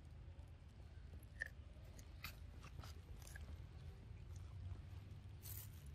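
A macaque biting and chewing kernels off a corn cob: faint, scattered crunches and clicks over a steady low rumble.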